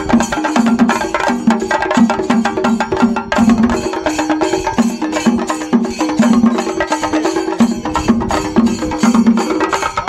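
Chenda melam: a troupe of Kerala chenda drums beaten with sticks in a fast, dense rhythm, with a deep, pitched stroke recurring about twice a second. Small hand cymbals (elathalam) keep time over the drums.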